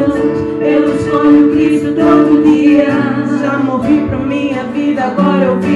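Live Portuguese-language worship song: female and male voices singing long held notes together over acoustic guitar accompaniment.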